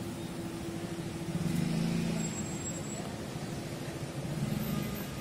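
Road traffic passing close by, a steady hum of engines and tyres with two louder vehicle passes, about a second and a half in and again near the end.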